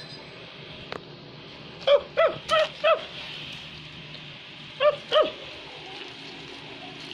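Six short, high yapping calls, each rising and falling in pitch: a quick run of four about two seconds in, then two more about five seconds in.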